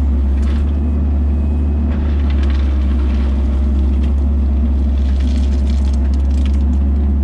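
An engine running steadily close by, a constant low hum, with faint scattered crackling over it.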